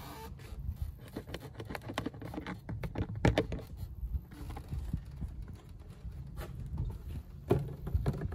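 Handling of a plastic quart bottle of motor oil at the engine's oil filler: scattered short clicks and knocks, busiest in the first few seconds and again near the end, over a steady low rumble of wind on the microphone.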